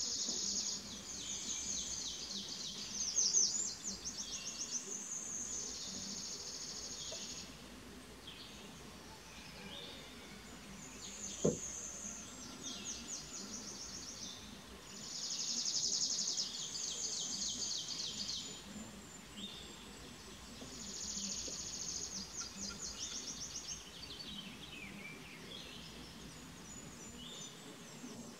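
A small songbird singing in long, fast trilled phrases, repeated several times with short pauses between them. A single short knock sounds about eleven seconds in.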